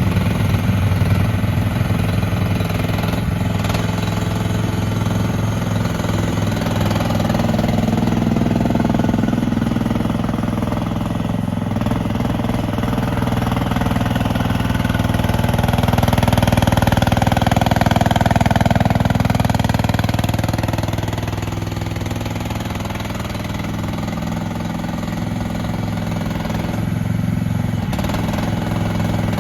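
Diggit EM15 mini excavator's gas engine running steadily, with mid-range tones that rise and fall as the hydraulics are worked and the load changes.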